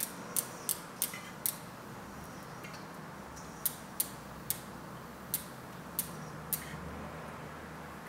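Rear bicycle wheel being turned slowly by hand in the frame, giving short sharp clicks a few tenths of a second apart: a quick run of five, a pause, then six more.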